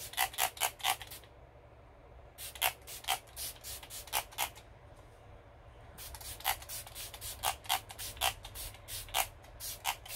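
Smashbox Primer Water face mist being pump-sprayed many times in quick succession: about twenty short hissing spritzes in three runs with pauses between, the longest run near the end.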